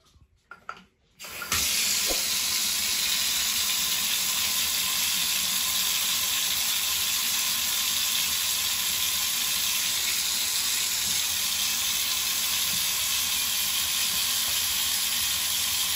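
Water running from a thermostatic bath mixer's spout into a bathtub: it starts suddenly about a second and a half in, then runs as a steady, even hiss.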